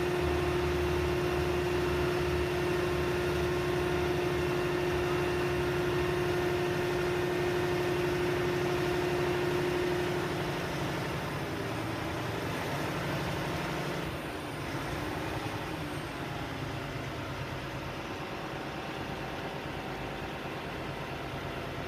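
Crane engine running steadily, then easing off: it gets quieter about ten seconds in and again around fourteen seconds.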